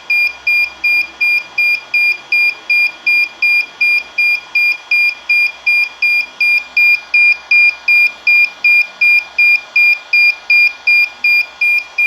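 Electronic beeper sounding a rapid, even alarm: short high-pitched beeps about two and a half times a second, steady and loud.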